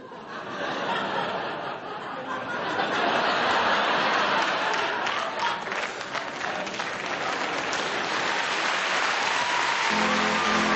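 Studio audience applauding, building over the first few seconds and holding steady. A short run of musical notes starts near the end.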